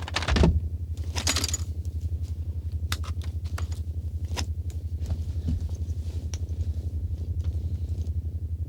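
Low electronic hum pulsing several times a second, with scattered clicks and short metallic rattles: a sci-fi time-machine sound effect powering up for the journey.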